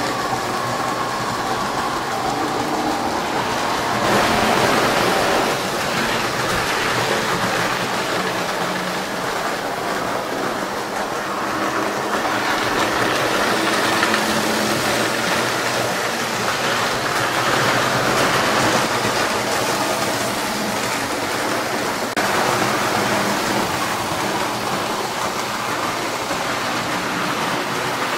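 Postwar Lionel O-gauge trains running on three-rail track: a steady whir and rumble of the locomotive motors and wheels on the rails, with a low hum under it. The loudness shifts a few times.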